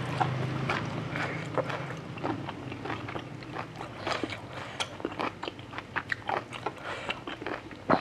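Close-miked chewing of grilled pork intestine salad: wet smacking mouth sounds and crisp bites, dozens of short irregular clicks. A low hum fades out in the first few seconds.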